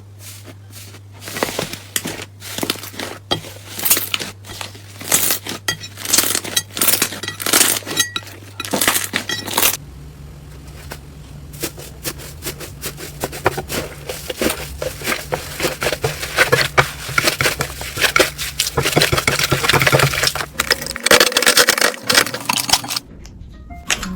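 Slime being squeezed and worked by hand, making dense, irregular crackling clicks and pops, over a low steady hum that shifts pitch about ten seconds in.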